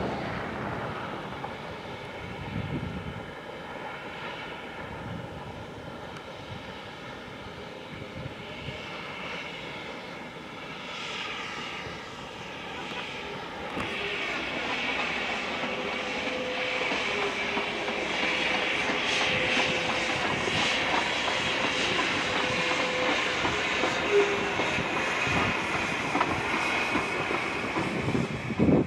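Narrow-gauge steam train running, with several steady high tones held through the first half, then a louder rushing noise from about halfway that keeps building.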